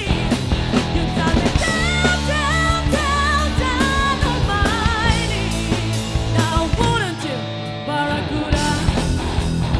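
Live rock band playing: a woman singing lead over electric guitars and drums. About three-quarters of the way through the band thins out briefly, then comes back in full near the end.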